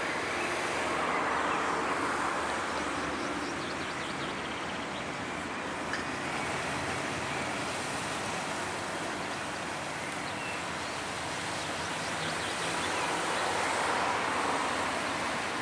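Road traffic passing close by: a steady hiss of tyres and engines that swells twice, near the start and near the end, as vehicles go past.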